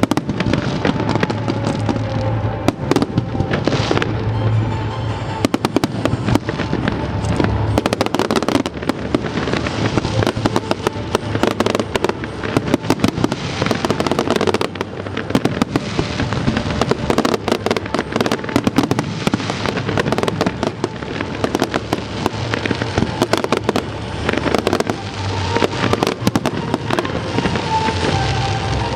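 A fireworks display with shells bursting in rapid, dense succession: many overlapping bangs and crackles, with music playing underneath.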